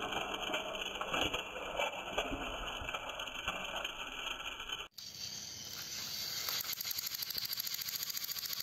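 Battery-powered toy train motors whirring, with small rattling clicks from the overturned engine and its wagon. After a cut about five seconds in, a fast, even ticking as two toy engines drive against each other head to head on the track.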